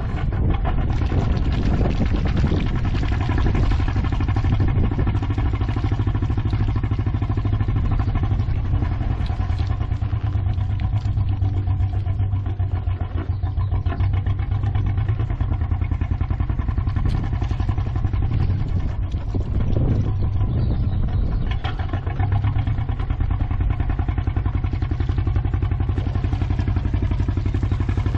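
A sailboat's small inboard diesel engine running steadily at low revs while motoring out of a marina berth, with a deep, even hum.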